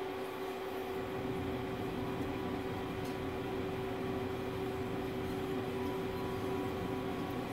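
A pellet grill's fan running during start-up, a steady hum with a constant tone over a low rushing noise.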